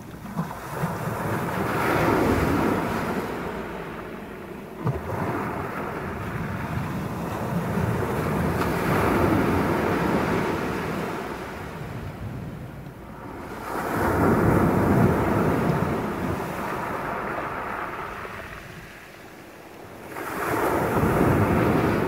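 Sea waves breaking and washing up a shingle beach of pebbles, the surf swelling and falling back in four surges, the loudest about two-thirds of the way through.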